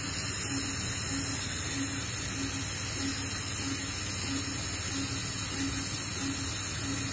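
Steady hiss of operating-room suction, with a patient monitor beeping evenly, a short low beep about every 0.6 seconds.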